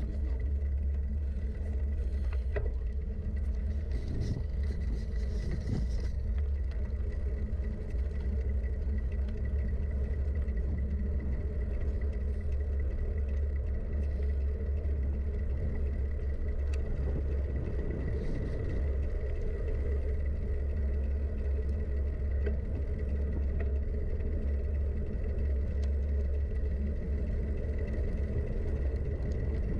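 Steady low wind rumble on a rider-mounted camera's microphone with scattered rattling and clicking from a mountain bike descending a forest trail.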